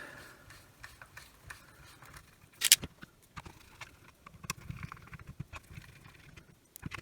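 Screws being driven back into the plastic housing of a Milwaukee M18 flashlight: scattered light clicks and taps of the screwdriver and parts, with one sharper click a little before the middle.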